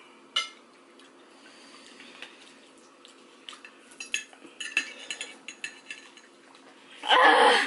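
A metal fork clicking and scraping lightly against a ceramic plate as noodles are twirled, a few scattered clicks. A woman's loud exclamation breaks in near the end.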